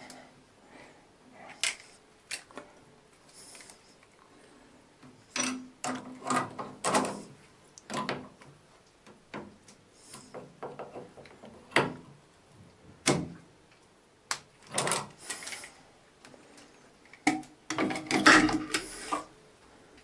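Chrome plumbing fittings and hand tools being handled at the wall outlets of a bath mixer: irregular metallic clicks, knocks and clattering, with a louder run of clattering near the end.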